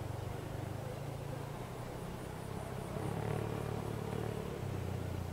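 Steady low drone of a vehicle's engine and running gear.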